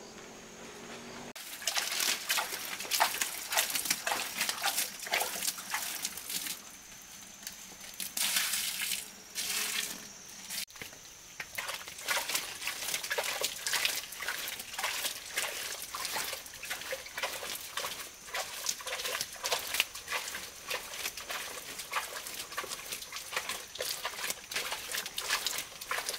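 Farm animals in a pen eating feed tipped out of a basin: a dense, irregular run of quick clicks and smacks that starts about a second and a half in.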